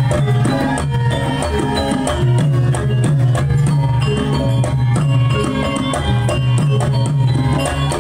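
Live Javanese gamelan music accompanying Lengger dance: steady hand-drum strokes over a melody of struck metallophones.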